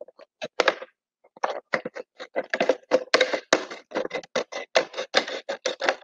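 Scissors snipping through a plastic PET bottle: a quick, irregular run of sharp clicks and crackles of the plastic, starting about a second and a half in and coming faster toward the end.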